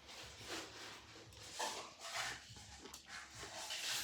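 Close-miked chewing of food: irregular, short, wet crunching and mouth sounds.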